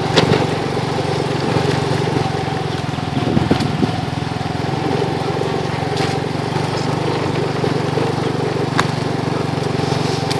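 A small engine running steadily at an even speed, with a few faint clicks.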